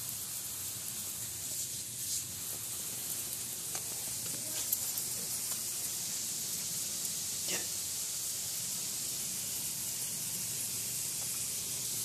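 Small garden irrigation sprinkler spraying with a steady hiss, with a few faint short ticks.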